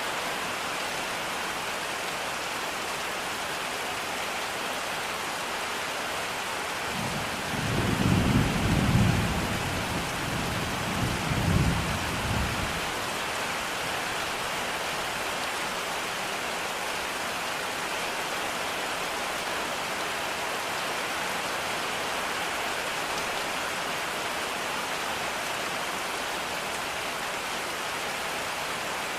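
Steady rain, with a low rumble of thunder rolling in about seven seconds in and fading after about five seconds, swelling twice.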